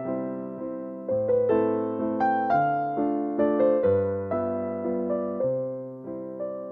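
Background solo piano music: a slow, gentle melody of single struck notes that ring and fade, over a low bass note that changes every second or so.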